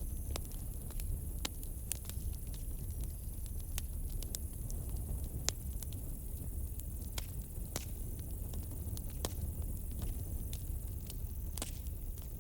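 Campfire crackling: irregular sharp pops and snaps, a few at a time, over a steady low rumble and a steady high hiss.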